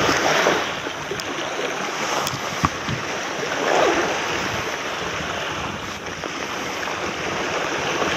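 Small waves washing onto a sandy shore, with wind on the microphone. A few light clicks come from fishing gear and a bag being handled.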